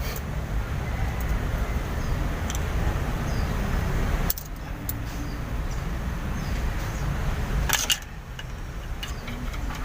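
A few sharp metallic clicks and clinks of hand tools working the valve gear of an Isuzu 12PE diesel during a valve-clearance adjustment, over a steady low rumble. The rumble drops suddenly about four seconds in and again near eight.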